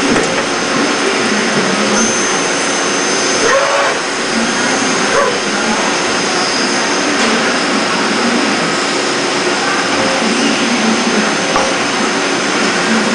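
Miyano ANC-35 CNC turning center running under power: a steady, loud whirring hiss, with faint wavering whines that rise and fall as its turrets and slides move.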